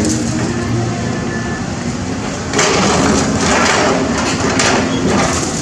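Cat 320D excavator's diesel engine running, then about two and a half seconds in a louder, rough crunching and scraping of concrete being broken up sets in and continues.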